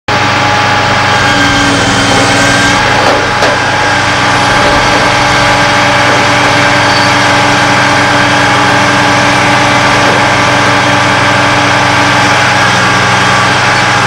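Heavy diesel construction machinery running steadily: a loud, even engine drone, with a brief knock about three seconds in.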